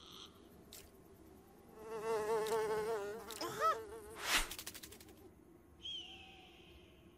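Cartoon sound effect: an insect-like buzz wavering up and down in pitch for about a second and a half, then a few quick rising squeaky glides, a short whoosh, and a small chirp near the end.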